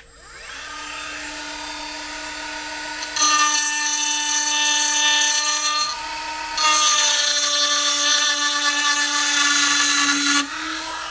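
A Dremel rotary tool spinning up to a steady high whine, then its tungsten carbide cutter bit grinding into a metal wastegate flange in two stretches of about three to four seconds each, with a short let-up between. Near the end the cutter comes off the metal and the tool runs free.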